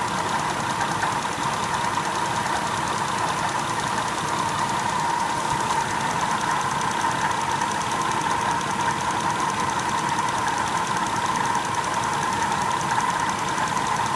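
Holden VZ Commodore engine running steadily, a constant unchanging noise.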